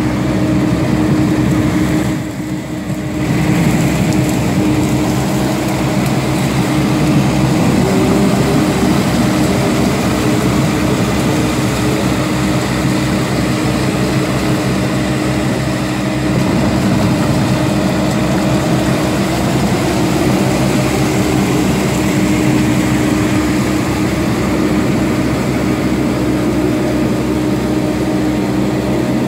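Truxor amphibious reed-cutting machine's engine running steadily as it works through a reed bed, cutting and raking phragmites, with a constant hum. The level dips briefly about two seconds in.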